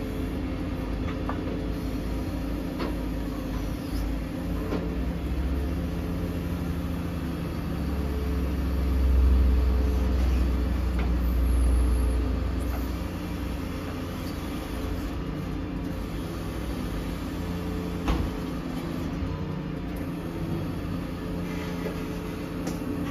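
Volvo FE 320 lorry's diesel engine running to drive the Hiab XDUO 128 crane's hydraulics as the crane is folded away. The low rumble grows louder for several seconds in the middle as the crane moves, and a single sharp knock comes about eighteen seconds in.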